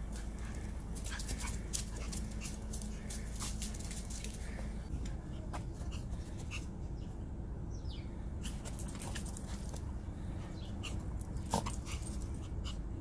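Two small dogs, a Shih Tzu–Yorkie mix and a Pomeranian, playing and scuffling together, with many short sharp clicks and rustles from their movement and a brief dog whimper near the end.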